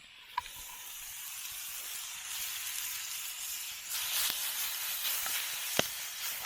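Cut-up steak, mushrooms and onions sizzling in a hot pan, the sizzle growing louder about four seconds in, with a few sharp pops.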